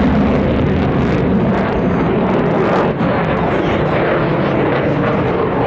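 RAF Eurofighter Typhoon's twin EJ200 jet engines, a loud steady rushing noise as the fighter flies its display.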